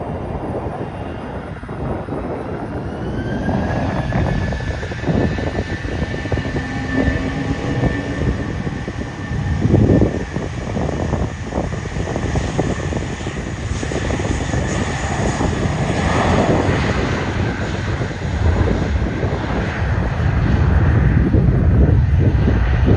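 A Boeing 747-400's jet engines running up for takeoff. About three seconds in, a whine rises and then holds, over a heavy rumble that swells and jolts now and then.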